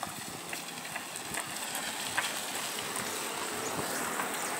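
Steady outdoor street noise that swells slightly and then fades near the end, with a few faint clicks.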